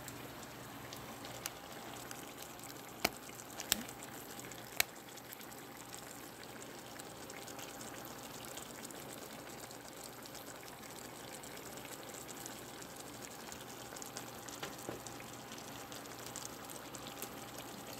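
A pot of cabbage and meat soup simmering steadily, with a few sharp clicks in the first five seconds.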